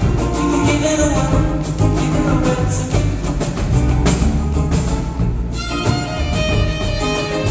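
Live band music with a violin playing over a steady, rhythmic low end; no singing.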